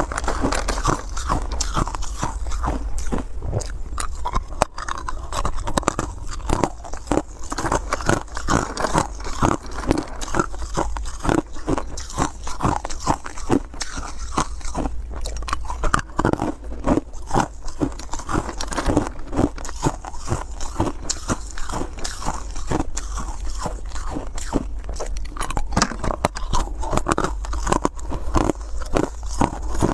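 Close-miked chewing and biting of hard round ice pieces: a fast, continuous run of crisp crunches, several a second, over a steady low hum.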